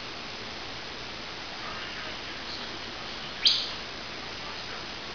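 Pet canary giving one short, loud call that sweeps upward in pitch about three and a half seconds in, with a few faint chirps before it, over a steady hiss.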